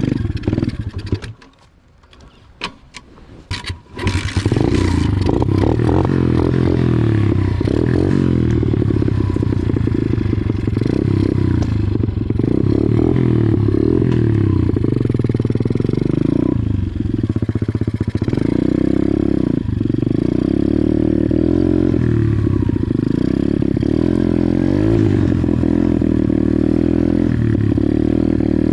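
Pit bike engine running with revs rising and falling as it is ridden. About a second in the engine sound drops away for a few seconds, with only a few short knocks, then it runs again from about four seconds in.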